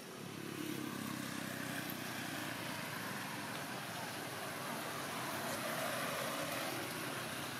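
Road traffic: a passing motor vehicle's steady engine and tyre noise, swelling slightly a little after halfway.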